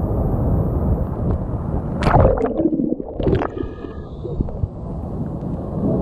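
Steady roar of white water churning at the foot of a large waterfall. About two seconds in, water splashes hard against the microphone, and for the next couple of seconds the sound turns muffled and gurgling before the roar returns near the end.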